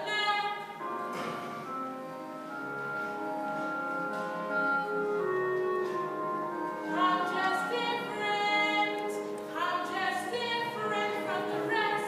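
A girl singing a musical-theatre song over accompaniment, with long held notes giving way to quicker phrases about seven seconds in.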